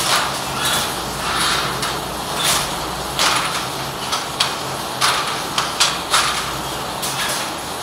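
Wooden korvai handloom in use: irregular knocks and clacks of the wooden frame and beater, with swishing between them, thickest about halfway through. A steady low hum runs underneath.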